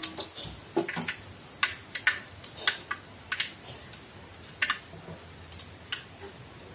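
Fenugreek and other whole spice seeds popping in hot oil in a metal pan as they temper: sharp, irregular pops, about two a second, fainter toward the end.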